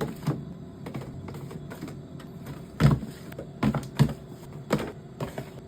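Food items and containers being set down and arranged in a refrigerator: scattered knocks and clatters over a low steady hum. The loudest knock comes about three seconds in, followed by several more.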